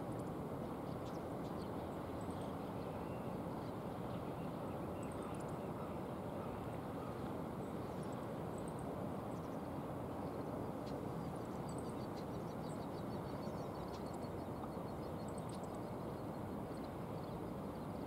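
Steady low rushing outdoor ambience by a river, with faint high chirps scattered through and a quick run of small ticking calls around the middle.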